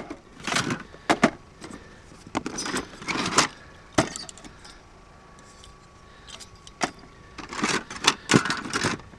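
Old computer parts, disk drives and expansion cards, clattering and rattling as they are handled and rummaged through, in irregular bursts of knocks with a quieter stretch in the middle.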